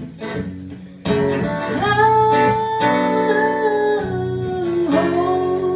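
Acoustic guitar strumming and ringing chords of a slow blues song, with a fresh strum about a second in and a long held sung note over it.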